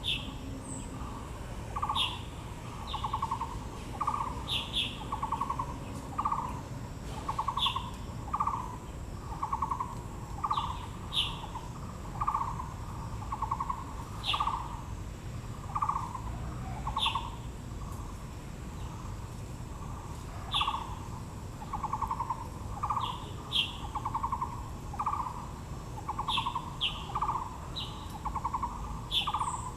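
Wild birds calling: one bird repeats a low hooting note over and over, about one to two a second, while short, higher chirps from another bird break in now and then.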